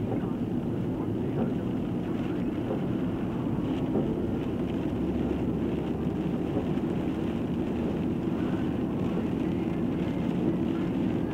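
Steady drone of a moving car, engine and tyres on a wet road, heard from inside the cabin.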